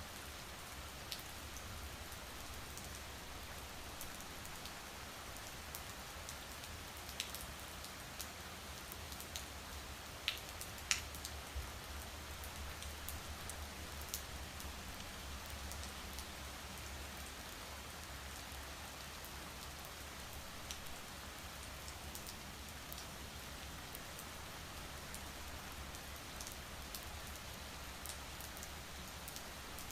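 Steady rain falling, an even hiss with scattered sharper drop ticks, a few louder ones about a third of the way through, over a low hum.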